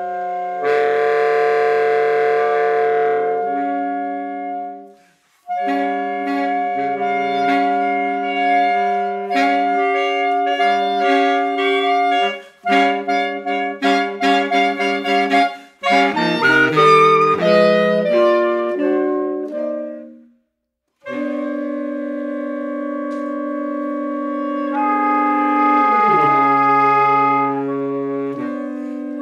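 Saxophone quartet of soprano, alto, tenor and baritone saxophones playing contemporary chamber music: long held chords broken by short pauses, a passage of quick shifting notes in the middle, and pitches sliding downward near the end.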